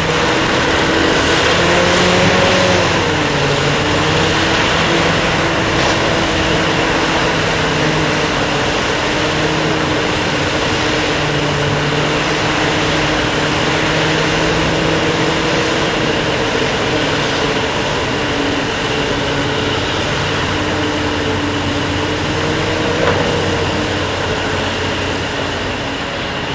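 Heavy mining machinery running steadily: an electric mining shovel digging and loading coal into haul trucks, with the trucks' diesel engines running. A few tones shift slightly in pitch, with a brief rise and fall about two seconds in.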